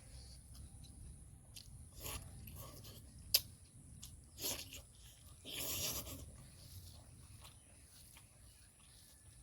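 Close-up eating sounds: a person chewing and crunching mouthfuls of a pork curry and bamboo shoot meal, with scattered small clicks, one sharp click about a third of the way in and louder crunching bursts in the middle.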